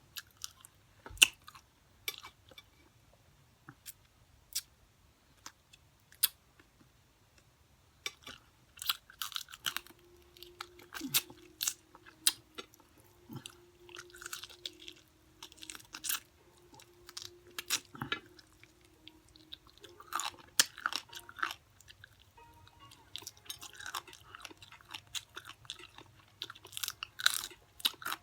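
Close-up chewing of extra-crunchy fried chicken: a few scattered bites and mouth clicks at first, then steady crunching and chewing from about a third of the way in.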